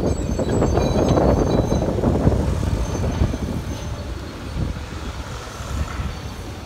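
Diesel engines of an excavator and a dump truck running, heard with wind buffeting the microphone. The sound is louder in the first few seconds and eases off after that.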